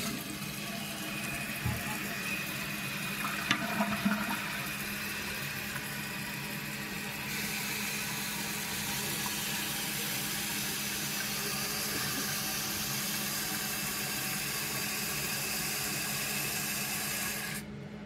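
Fill valve refilling a 1995 Mansfield Alto toilet tank after a flush, with the lid off: a steady hiss of inflowing water that grows a little louder and brighter about seven seconds in, then shuts off sharply a little before the end as the tank reaches its fill level.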